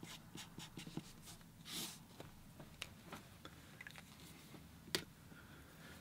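Felt-tip marker writing on paper: faint short strokes as letters are finished and then underlined, with one sharper tap about five seconds in.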